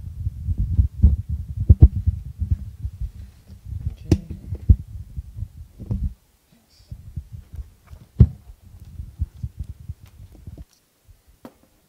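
Microphone handling noise: irregular low thumps and rubbing, with a few sharp clicks, as a microphone is held and passed between two people. It cuts off suddenly near the end.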